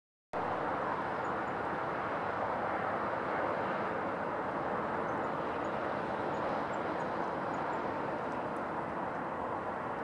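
A steady, distant rumble of engine noise, with a few faint, short, high bird chirps over it.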